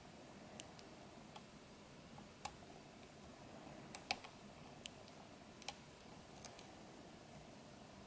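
Faint, irregular light metallic clicks of a lock pick and tension wrench working the pins inside a Bower pin-tumbler cylinder lock, under top-of-the-keyway tension. There are about a dozen clicks, the loudest about four seconds in.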